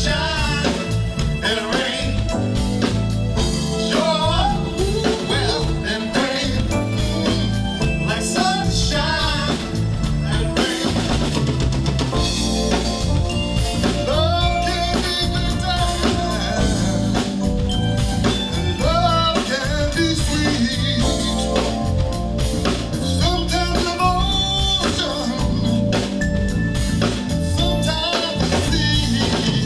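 Live soul band music: a drum kit keeps a steady beat under a wavering melodic lead line.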